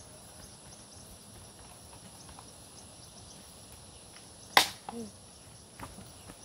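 Steady high-pitched insect drone (crickets) over quiet rural ambience, with one sharp loud knock about four and a half seconds in and a smaller click a second later.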